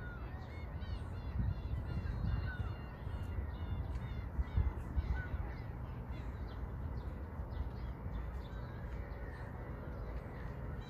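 Birds calling in quick series of short, high calls, busiest in the first half, over a low rumble of wind on the microphone.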